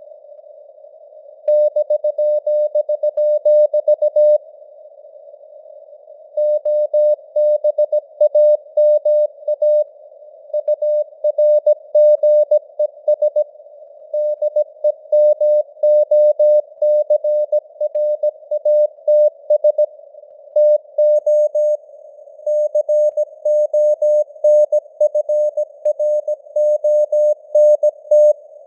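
Morse code (CW) sent at 17 words per minute: a single steady mid-pitched tone keyed on and off in dots and dashes over a narrow band of simulated radio hiss, its strength varying slightly. The sending pauses briefly near the start and again for about two seconds around five seconds in.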